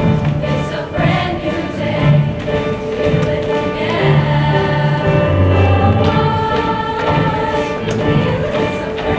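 Junior high show choir singing held chords over an instrumental accompaniment with a low bass line.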